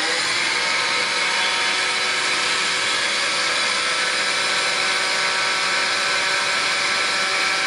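Recorded sound of an electric kitchen blender running at a steady speed, an even motor whir with a hiss.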